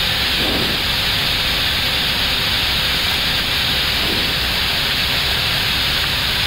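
Steady rushing hiss of cockpit noise on an Airbus A321neo flight deck during final approach: airflow and ventilation.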